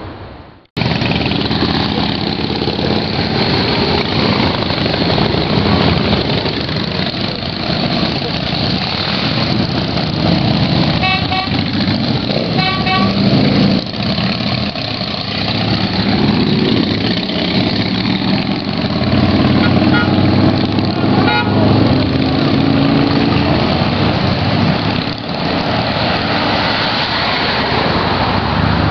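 A stream of motorcycles riding through a short rock tunnel, their engines running loudly the whole time. About eleven seconds in and again around twenty seconds, a horn gives a quick series of short toots.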